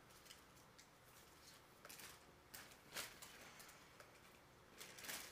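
Near silence with a few faint scattered clicks and rustles of things being handled during tidying up, the most distinct about three seconds in and another near the end.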